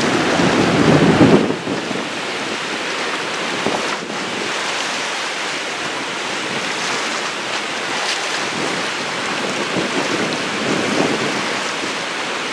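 Water rushing through three open dam spillway gates and churning into whitewater below, a loud, steady rush of heavy spring flow. Wind buffets the microphone for about the first second and a half.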